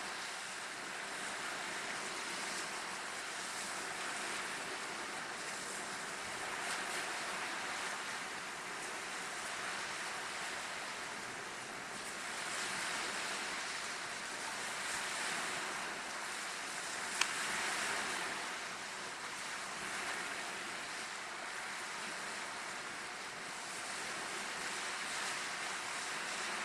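Choppy waves washing and splashing against a rock jetty in a stiff wind, the wash swelling and easing every few seconds. A single sharp click about 17 seconds in.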